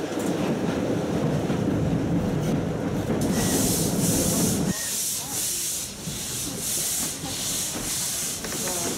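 Low rumble of a train running on the track. About three seconds in, the Blanc-Misseron 020+020 Mallet steam locomotive starts sounding its rhythmic hissing exhaust chuffs, about two a second, and near five seconds the rumble drops away, leaving the chuffs.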